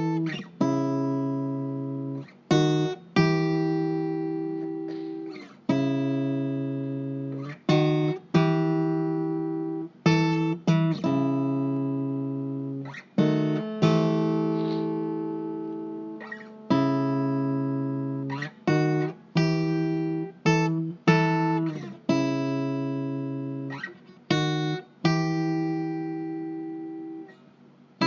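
Instrumental acoustic guitar music: chords strummed one at a time and left to ring out and fade, a new chord every two or three seconds, now and then two quick strums together.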